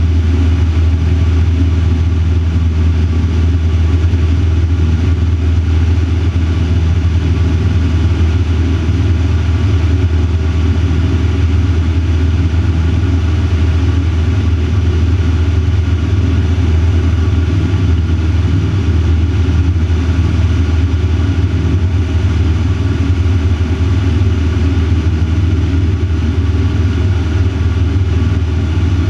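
Van's RV-4 light aircraft's piston engine and propeller running steadily in flight, a loud, unchanging drone as heard inside the cockpit.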